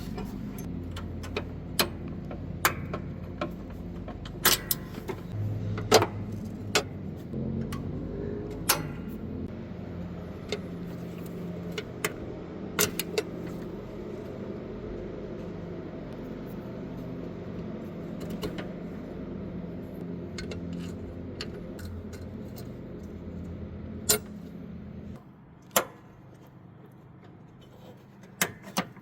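Metal clinks and taps of cotter pins and washers being handled on riding-mower deck brackets, at irregular moments, over a steady low hum that cuts off about 25 seconds in.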